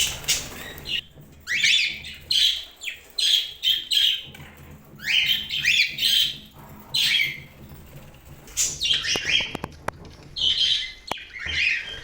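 Budgies chirping in repeated bursts of quick, high chirps with short pauses between them.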